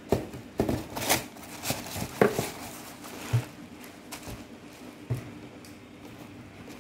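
Handling noise from black foam clogs being turned over by hand in their cardboard box: irregular soft knocks and rustles, busiest in the first three seconds or so, with one more knock about five seconds in.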